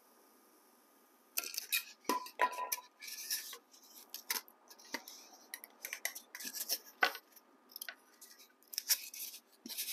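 A block of polystyrene foam being handled and cut with a hot wire foam cutter: irregular scraping, rubbing and light clicks, with a short squeak about two seconds in. It starts after a second or so of near silence.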